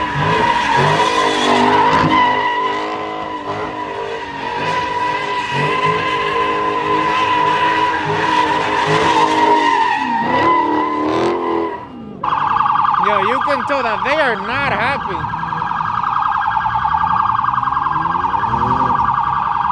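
A Dodge Charger doing donuts: engine revving up and down under a steady, high tyre squeal. About twelve seconds in the sound cuts abruptly to a police siren warbling rapidly, with an engine revving underneath near the end.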